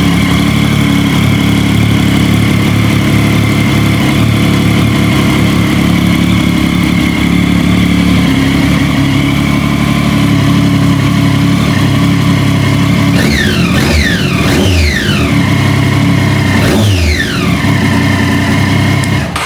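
Triumph Daytona 675R's 675 cc inline-three engine idling steadily, running with its cooling system freshly refilled after a full coolant change. About two-thirds of the way through it is blipped several times in quick succession, the revs falling back to idle after each. The engine sound stops abruptly at the very end.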